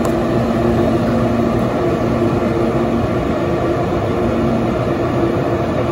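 RecTec Bullseye pellet grill running while it smokes, its fan giving a steady hum and rush.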